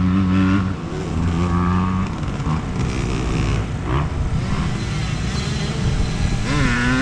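Motocross dirt bike engines running on the track, their pitch holding steady at times and rising and falling with the throttle.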